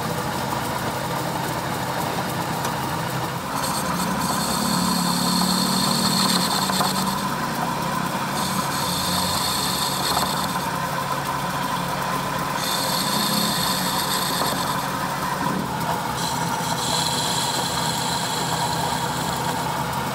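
Metal lathe running steadily with a spinning steel workpiece, while a drill and tool bit cut it: a high cutting hiss comes and goes in four stretches of a few seconds each over the steady machine drone.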